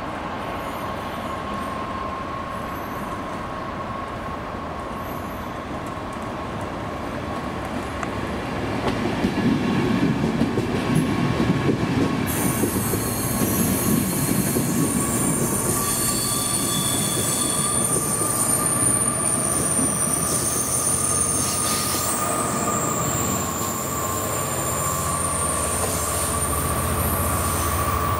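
A Class 67 diesel-electric locomotive propelling a loco-hauled passenger train away. The train gets louder about eight seconds in, and from about halfway through the wheels squeal in several high, steady tones.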